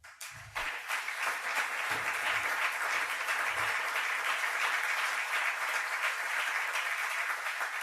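Large audience applauding in a hall, welling up about half a second in and holding steady.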